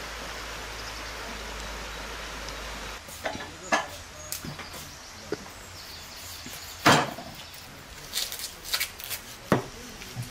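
A cleaver cutting raw beef on a wooden cutting board, with scattered sharp knocks of the blade against the board. The loudest knock comes about seven seconds in, and a quick cluster follows near the end. For the first three seconds there is only a steady outdoor hiss.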